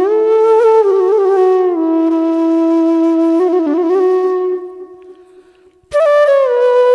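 Bansuri (bamboo flute) playing a slow melody of long held notes with small ornamental turns. The phrase fades away about two-thirds of the way through, and a new phrase comes in suddenly near the end.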